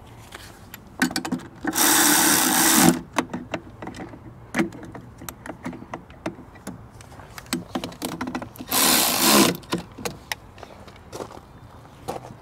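A cordless power tool runs twice in bursts of about a second, driving bolts home at the hydraulic filter head, with clinks and clicks of metal and handling in between.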